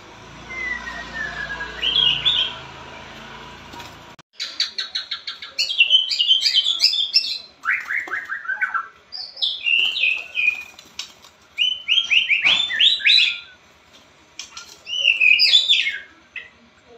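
White-rumped shama singing: loud, fast, varied phrases of whistles and trills with short pauses between them. The song starts abruptly about four seconds in, after a quieter stretch of hiss with one faint gliding whistle and a short call.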